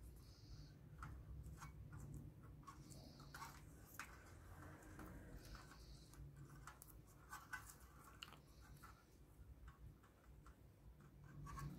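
Near silence with faint scattered ticks and soft crinkles of insulating tape being wrapped by hand around a wire joint.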